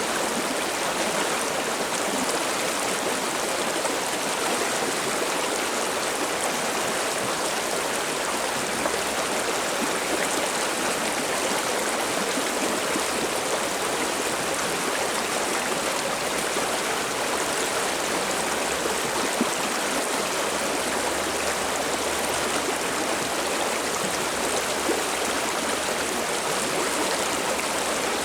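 Mountain stream water babbling and splashing over rocks, a steady, unbroken rush.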